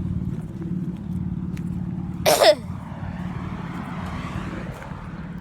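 A person gives one sharp cough about two seconds in, with a squeaky voice that falls in pitch, over a steady low hum.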